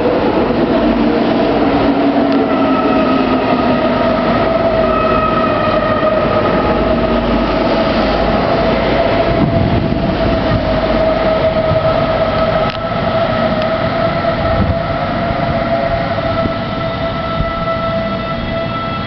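Passenger train running through a station: a steady whine over wheel-and-rail noise, dropping a little in loudness about thirteen seconds in.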